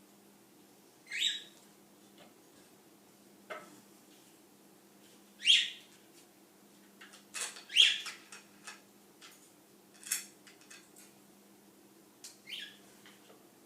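Wooden parts of a knitter's loom stand being taken apart: scattered short knocks, clatter and squeaks of boards and screw knobs, at irregular intervals, the loudest about halfway through. A faint steady hum lies under them.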